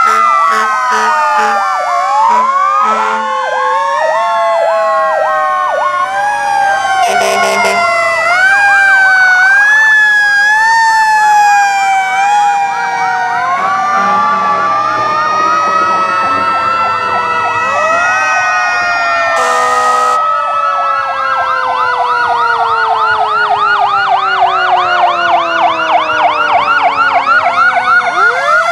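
Several fire truck sirens sounding at once as the trucks pass, their rising and falling tones overlapping. There are short horn blasts about 7 seconds in and again about 20 seconds in. In the second half a fast, rapidly repeating yelp takes over while another siren slowly falls in pitch.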